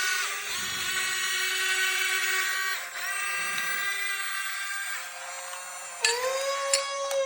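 Small electric gear motors of a toy RC excavator whining, the pitch stepping to a new note several times as movements start and stop.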